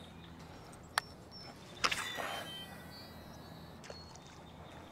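Quiet outdoor ambience with faint short high chirps. There is one sharp click about a second in, and a brief noisy burst just before two seconds.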